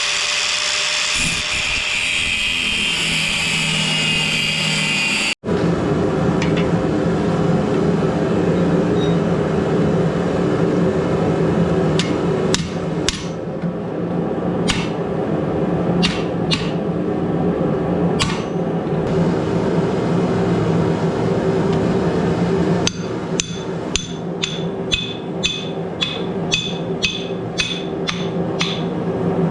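Hammer blows on steel at the anvil while forging a sword blade, over a constant low drone. A few scattered strikes come first, then a steady run of about two blows a second with a bright ring to each.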